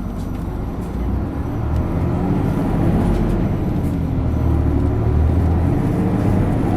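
Isuzu Erga city bus's inline-six turbo diesel pulling hard under full acceleration through its six-speed manual gearbox. It grows louder over the first couple of seconds, then holds a steady, heavy drone.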